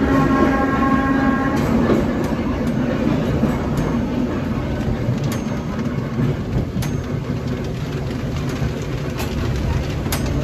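Vintage electric trolley car running on rails, heard from inside the car: a steady rumble of wheels on track with occasional sharp rail-joint clicks, and a steady whining tone for the first second and a half.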